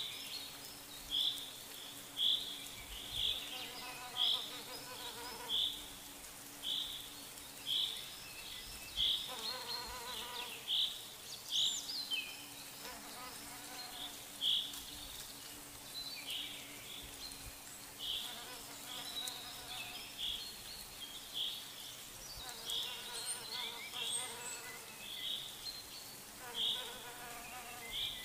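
Outdoor wildlife chirping: a short high chirp repeating about once a second, with a lower, buzzy call of about a second breaking in every few seconds.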